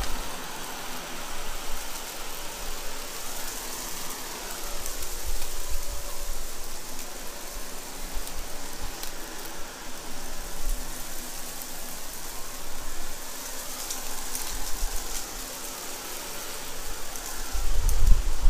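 Shark Navigator upright vacuum running over carpet and crackling as it sucks up crunchy crushed-box debris. The motor hums steadily while the sound swells and eases with each push and pull, with a low bump near the end.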